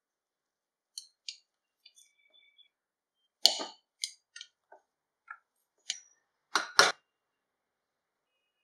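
Stainless steel potato masher mashing boiled potatoes in a glass bowl: about a dozen short, irregular knocks and clinks as the masher strikes the bowl, the loudest about three and a half seconds in and a double knock near the end.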